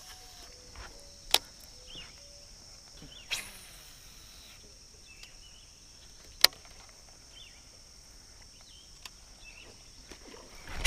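Steady high-pitched chorus of crickets and other insects, with two sharp clicks, about a second and a half in and again about six and a half seconds in.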